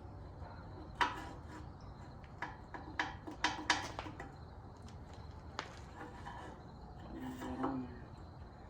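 Several sharp clanks and knocks of metal parts being handled, one about a second in, a quick cluster of three between three and four seconds in, and another past five seconds. A brief pitched sound comes near the end.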